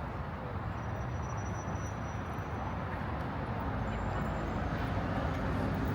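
Low, steady rumble of city traffic that slowly grows louder, with two brief faint high whistling tones over it.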